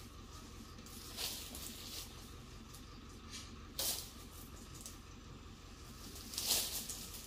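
Cut oil palm fronds rustling as they are handled and moved: three brief swishes, about a second in, just before the four-second mark and near the end, the last the loudest.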